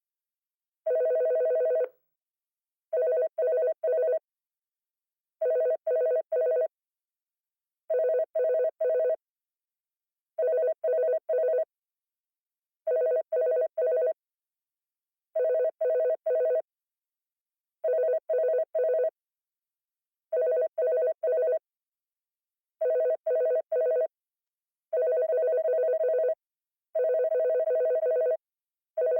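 Electronic telephone ringing: one unbroken ring, then repeated bursts of three quick beeps about every two and a half seconds, turning back to longer unbroken rings near the end.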